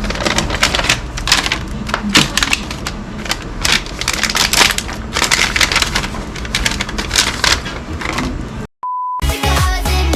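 Rapid, closely packed clicking and clatter over a low steady hum, then a short gap and a single brief steady beep, after which electronic dance music with a beat starts near the end.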